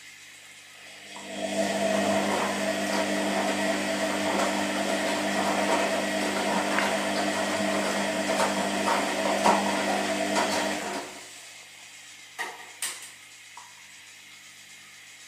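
An electric appliance motor runs steadily for about ten seconds and then stops, followed by two sharp clicks.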